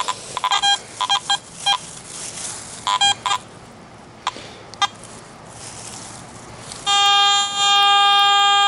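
Garrett AT Gold metal detector sounding on a target that reads in the 80s: a string of short tone beeps as the coil is swept back and forth over it. From about seven seconds in comes a long steady tone.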